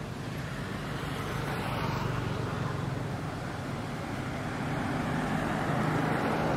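Steady outdoor rumbling noise with a low hum, louder around two seconds in and again near the end.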